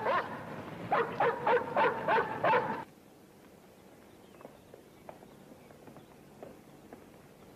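Rottweiler barking in a rapid volley of about seven barks, roughly four a second, that cuts off abruptly about three seconds in. Faint footsteps follow.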